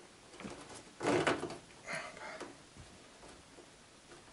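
Short scrapes and knocks as a plastic-bottle washstand is handled and set in place. The loudest comes about a second in and another about two seconds in.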